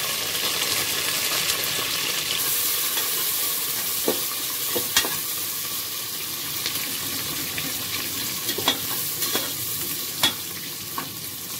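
Sliced onions, green chillies and mint sizzling in hot oil and ghee in an aluminium pressure cooker, stirred with a metal ladle. The sizzle is steady, and the ladle knocks sharply against the pot a few times.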